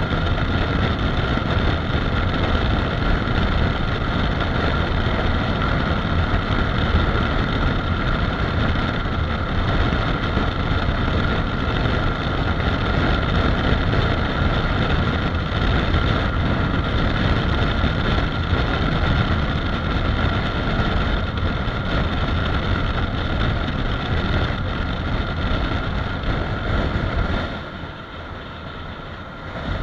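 Honda CRF250 Rally's single-cylinder engine running at steady highway speed under heavy wind rush on the microphone. It dips quieter for about two seconds near the end, then comes back.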